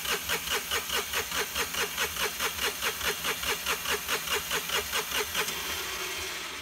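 Starter cranking the freshly rebuilt Tata Ace Gold BS6 diesel engine, about five even compression pulses a second, without firing: the fuel system still has air in it and is being bled at the pump's delivery line. The pulses fade near the end.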